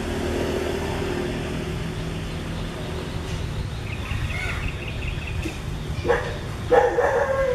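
Short barking animal calls, several in quick succession near the end, after a thin high call about four seconds in, over a steady low engine rumble.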